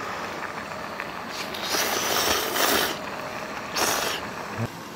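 A man slurping hot instant noodles off chopsticks: one long slurp in the middle and a shorter one near the end, over the steady hiss of a portable gas stove burner.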